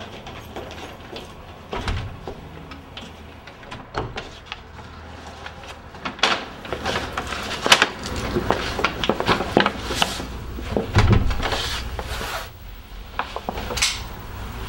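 Footsteps and wooden knocks and clunks of people moving about and handling things, sparse for the first six seconds and then busier over a low room hum.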